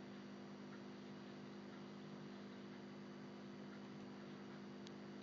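Near silence: a faint, steady electrical hum with light hiss from the recording.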